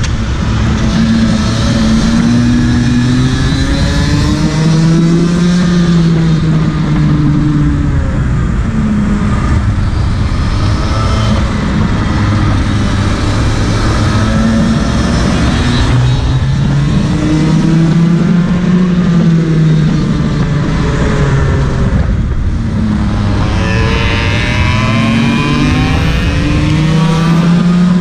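Go-kart engine heard from onboard, revving up in pitch along the straights and falling off into the corners, about four times over.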